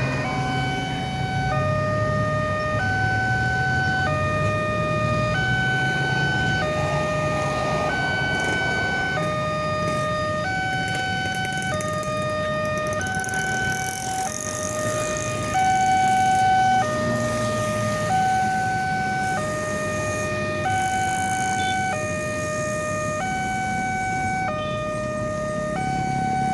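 Railway level crossing warning alarm sounding steadily as two alternating tones, high then low, each held about a second and a quarter, over the low rumble of waiting road traffic.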